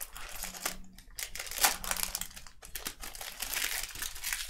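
Plastic trading-card pack wrappers crinkling as packs are handled, with scattered sharp clicks and rustles of the cards.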